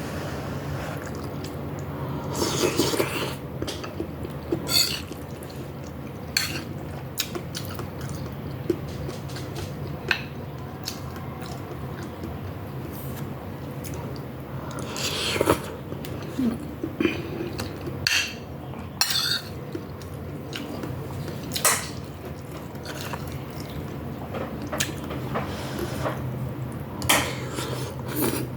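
Cutlery clinking against dishware while eating: scattered sharp clinks and scrapes of a spoon on a bowl or plate, over a steady low hum.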